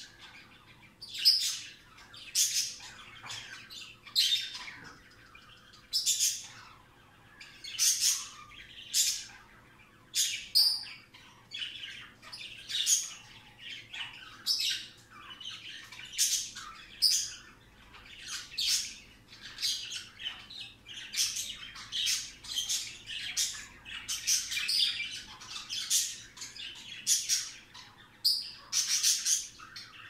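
Budgerigars (budgies) chirping in short, high-pitched calls, about one a second, without a break.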